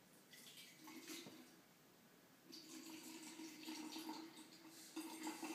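Water being poured from a plastic container into a small clear flask, trickling faintly. There is a short spell of pouring near the start and a longer, steadier one from about halfway.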